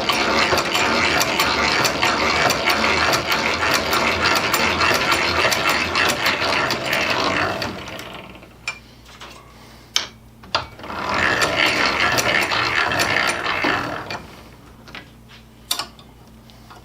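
Hand-cranked drill turning, its gears whirring as a 5/16 bit drills a metal plate. The cranking stops about eight seconds in, followed by a couple of sharp clicks. A second spell of cranking lasts about three seconds, then a few more clicks.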